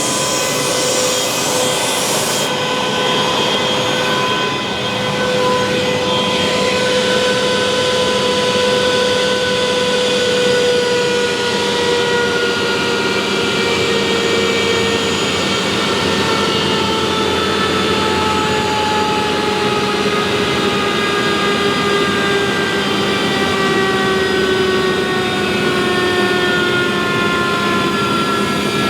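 Alup SCD 30 air-cooled variable-speed rotary screw air compressor running loaded and making air, a steady whine of several tones that slowly falls in pitch as the drive slows the motor. A high hiss of air cuts off about two seconds in.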